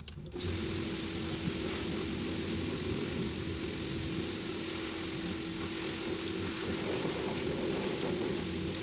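A machine starts abruptly and runs steadily, with a constant hum.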